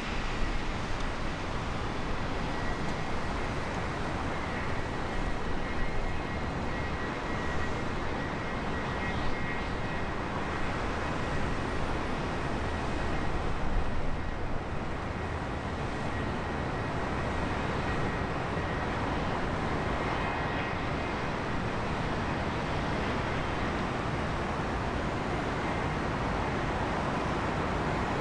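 Gulfstream G280 business jet's twin Honeywell HTF7250G turbofans running as it rolls along the runway before takeoff: a steady jet-engine rush with a thin high whine.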